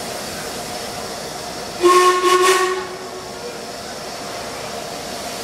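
Steam whistle of LMS Fairburn 2-6-4T tank locomotive 42073, one short blast of about a second starting about two seconds in, over the steady hiss of steam escaping from the standing engine.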